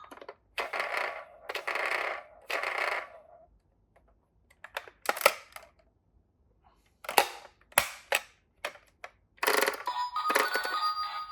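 Toy minicars rolling and clattering on a toy slope: a few short rushing rolls, then scattered sharp clicks and clacks. A ringtone-like electronic melody starts near the end.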